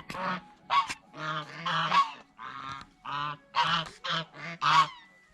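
White domestic geese honking: a quick run of about ten short, loud honks that stops about five seconds in.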